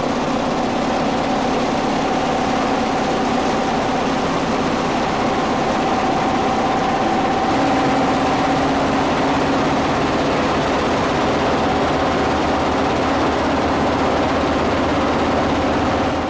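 Heavy-duty vibrating hot screen running with hot sinter on its deck: a steady, loud mechanical din from the shaking screen and its geared exciter drive, with a constant hum running through it.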